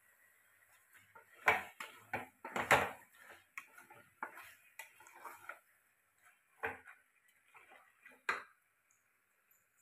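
Wooden spatula knocking and scraping against the sides of a metal pressure cooker while stirring chicken in thick masala: irregular clacks, the loudest a couple of seconds in, with a last sharp knock near the end.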